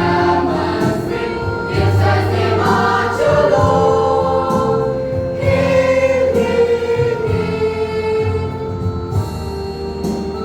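Junior church choir singing in unison and harmony over steady low accompaniment, with a long held note in the middle.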